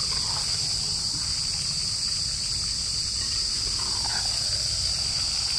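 Crickets trilling in a steady, high, continuous chorus. Faint scraping of a metal spoon stirring in a clay pot is heard under it.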